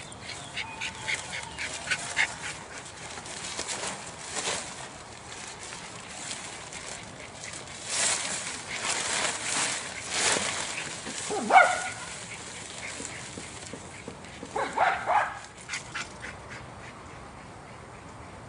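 Nylon tent rain fly rustling and flapping as it is unfolded and spread over a dome tent, with a small terrier giving two short yips, the louder one past the middle and the other a few seconds later.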